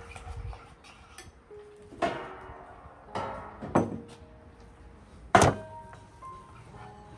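Four knocks of kitchenware being handled, the loudest about five seconds in, some ringing briefly, over soft background music.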